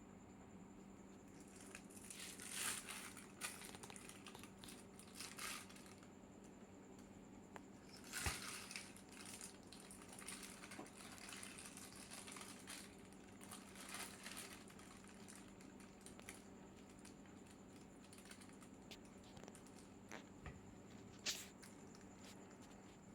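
Crinkly wrapping being handled in several short rustling, crackling bursts, with a sharp click near the end, over a steady low electrical hum.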